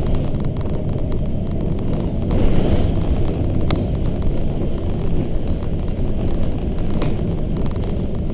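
Volvo B7RLE bus heard from inside the front of the cabin while under way: the rear-mounted six-cylinder diesel and drivetrain running steadily under tyre and road noise. A couple of sharp clicks from cabin fittings, one about a third of the way in and one near the end.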